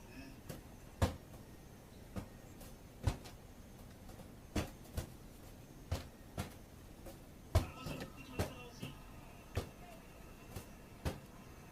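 A dozen or so light knocks and clicks at irregular intervals in a small, quiet room, the sharpest about a third of the way in and again past the middle.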